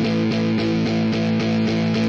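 Background music: steady held chords with notes struck in an even rhythm, about four a second.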